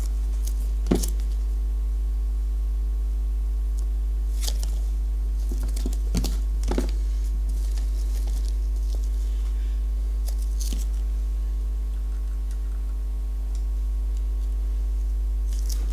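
Steady low electrical hum with a buzz of overtones, the background noise of an external microphone, with a few brief scrapes and taps from the cardboard iPad Air 2 box being turned over in the hands.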